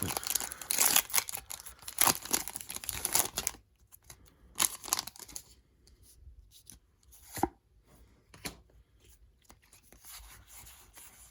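A Pokémon booster pack's foil wrapper being torn open, a dense ripping and crinkling for the first three or four seconds. After that come scattered softer rustles and light clicks as the wrapper and cards are handled.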